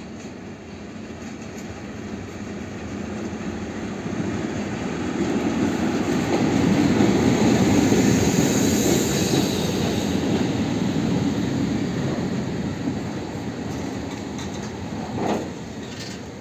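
SM42 diesel locomotive hauling a freight train of flat wagons loaded with concrete sleepers past at low speed: engine and wheels rumbling, swelling to the loudest as the locomotive goes by about halfway through, then the wagons rolling on a little quieter. A brief sharper sound near the end.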